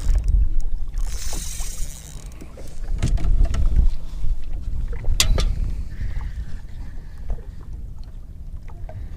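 Low rumble of wind buffeting the microphone in an open fishing boat, swelling in gusts, with a few sharp clicks and knocks from gear being handled while a fish is fought on rod and reel.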